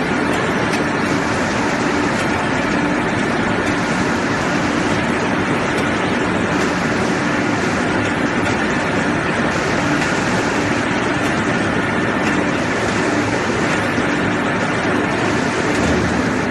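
Several vertical pellet mills running together alongside a belt conveyor carrying pellets: a steady, loud mechanical noise with a low hum.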